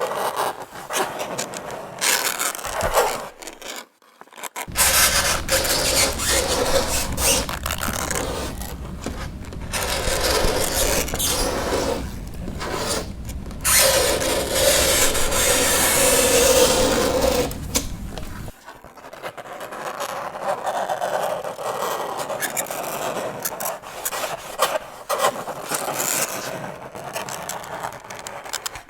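Fingernails scraping across a chalkboard in repeated grating strokes with short breaks between them, and a drawn-out squeal about halfway through.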